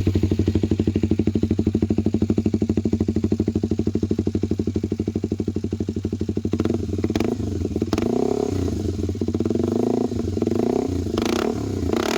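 Kawasaki Ninja 250SL single-cylinder engine breathing through an Austin Racing aftermarket exhaust, freshly started and idling with an even, pulsing beat. From about eight seconds in it is revved a few times, the pitch rising and falling.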